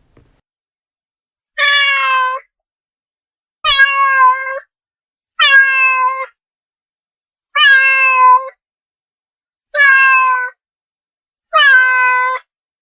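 Domestic cat meowing six times, each meow just under a second long and fairly level in pitch, dropping slightly at the end, repeated about every two seconds with silence between.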